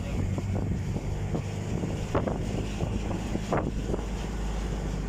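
Steady low rumble of wind on the microphone, with a few short faint clicks.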